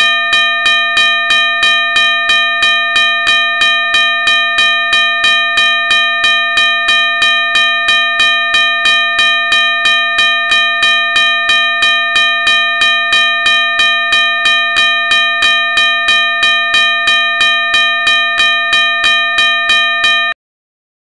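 Australian level crossing bell ringing in a fast, even series of strikes, between two and three a second, each strike ringing with several steady overtones over a low hum. It stops abruptly about a second before the end.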